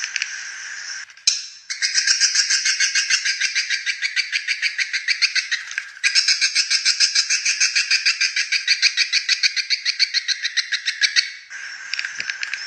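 Swiftlet lure call for drawing in and roosting swiftlets: a rough, raspy train of rapid chirps, about ten a second, that breaks off briefly about six seconds in. Before it and near the end a looser swiftlet chatter plays.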